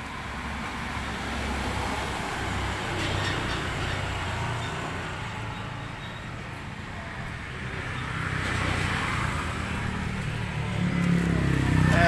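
Steady low rumble of road traffic, with swells of rustling and fluttering as a dove is grabbed by hand inside a wooden cage.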